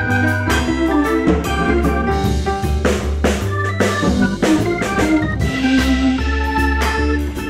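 Background music: held keyboard chords over a steady drum beat.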